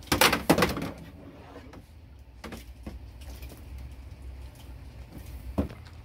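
Spring-loaded jumper cable clamps snapping and clattering several times in quick succession in the first second. A few faint clicks follow as the cables are handled, one slightly louder near the end.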